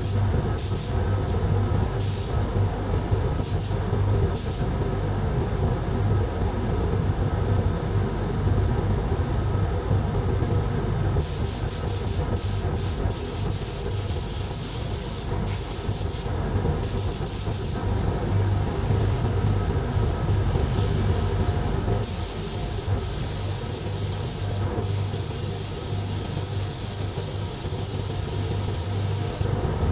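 Air compressor running steadily with a low hum, while a compressed-air gun hisses on and off several times as its trigger is pulled and released.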